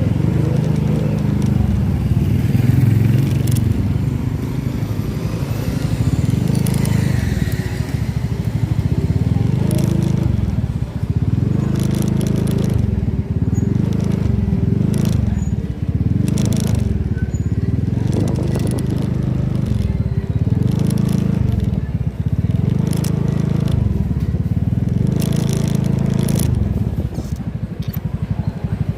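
Motor vehicle engine running during a ride, recorded on board, its note rising and falling every couple of seconds, with wind and road noise buffeting the microphone.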